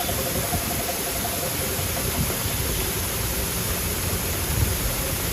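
Steady hiss of heavy rain with wind gusting on the microphone, and a vehicle engine humming faintly under it in the first second or two.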